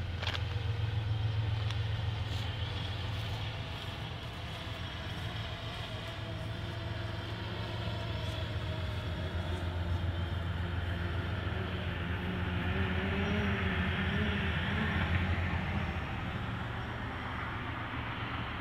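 Quadcopter drone's propellers buzzing as it flies back in, the pitch wavering up and down and the sound growing loudest about two-thirds of the way through before easing off. A steady low rumble runs underneath.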